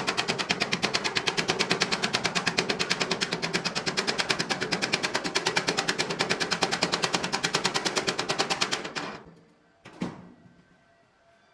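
Electric arc welding crackling in a rapid, even pulse of about six beats a second as a downhill bead is run, until the arc stops about nine seconds in. A single sharp click follows about a second later.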